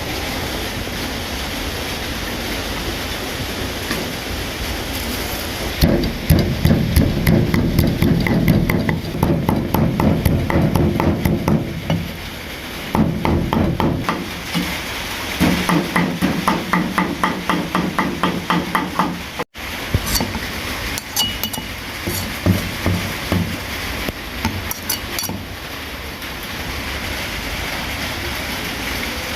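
Long runs of rapid, evenly repeated knocks, several a second, with a steady hiss before and after them.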